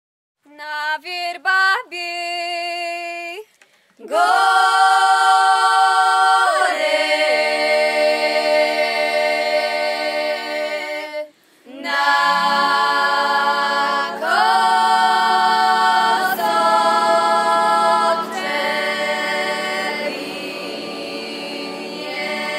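Orawa highland folk song sung a cappella by a group of voices, mostly women's. It opens with a few short phrases, then moves into long held chords, with a break for breath about eleven seconds in, after which lower voices join.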